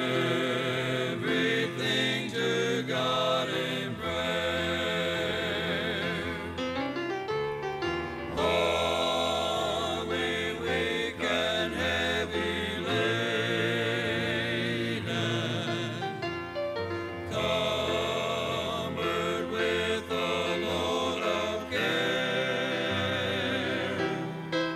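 Gospel vocal group singing a hymn in harmony with accompaniment, played back from a cassette tape recording.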